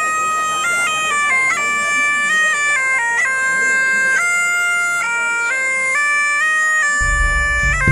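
Bagpipe playing a melody, the notes stepping up and down in quick succession. A low rumble comes in near the end.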